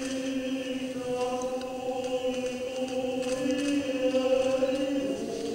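A group of voices singing a slow church hymn in long held notes, the pitch moving to a new note near the end.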